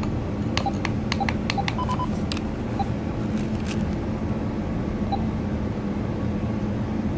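Angelcare baby monitor's parent unit playing the nursery with its volume turned up: a steady hiss with a low hum under it. A quick run of short clicks and a few faint beeps comes in the first two and a half seconds.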